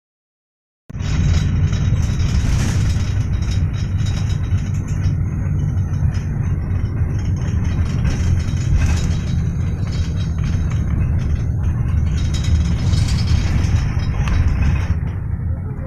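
Silence for about a second, then a steady low rumble of a moving vehicle.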